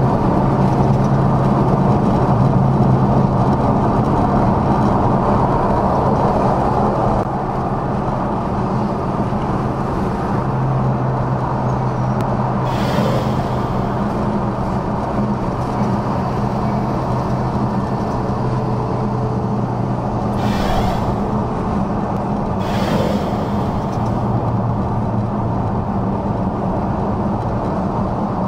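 Dodge Charger Scat Pack's 6.4-litre V8 running steadily at cruising speed, a constant low drone mixed with road and tyre noise. Three brief rushing noises cut in, one about halfway through and two close together later on.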